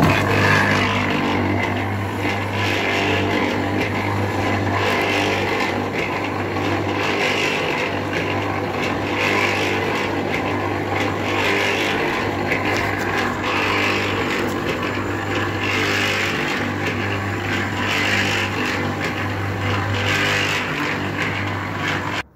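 Concrete mixer running while mixing dry clay and dry sawdust: a steady motor hum under a rushing sound from the dry load tumbling in the turning drum, swelling about every two seconds. It starts abruptly and cuts off suddenly near the end.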